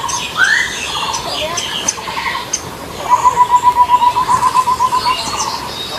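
Birds calling: scattered chirps and a rising call near the start. About three seconds in comes a fast trill of evenly spaced notes lasting about two seconds.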